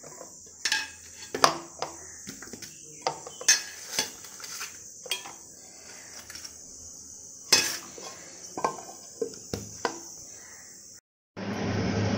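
Cut vegetables being picked up off a stainless steel plate by hand: scattered clinks and knocks of the steel plate, over a steady high hiss. About eleven seconds in the sound drops out briefly and a steady rushing noise takes over.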